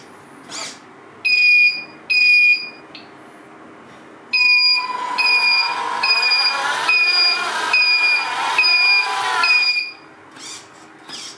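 Electronic beeping from the RC scale Unimog truck's sound module: two beeps, then a steady run of about nine beeps, roughly two a second. Under the run, while the truck drives, there is a steady whine from the drive motor.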